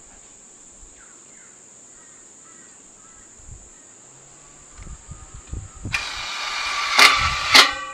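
Crickets chirping steadily, then about six seconds in a cordless screw gun starts driving a screw into the aluminium gate frame, running loudly for the last two seconds with two sharper surges as the screw bites.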